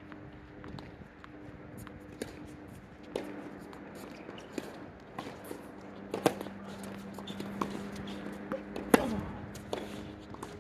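Tennis ball bounced on a hard court before a serve, then sharp racket strikes and ball impacts as the serve and the rally go, single knocks a second or more apart, the loudest about six and nine seconds in. A steady low hum runs underneath.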